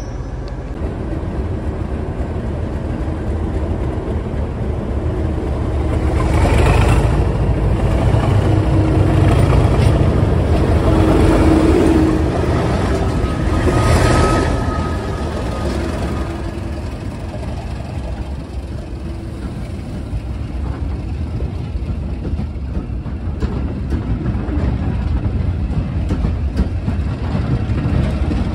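Diesel locomotive passing close by hauling coaches. Its engine builds up and is loudest about seven to fifteen seconds in, then the coaches keep rolling steadily past on the rails.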